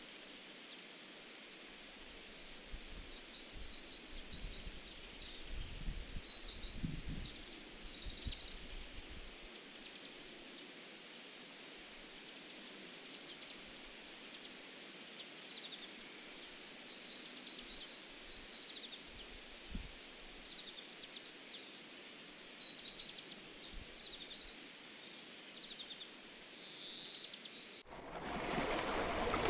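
Quiet countryside ambience: a steady hiss with small birds chirping in two short spells of song. Near the end it cuts to a louder rushing noise of water.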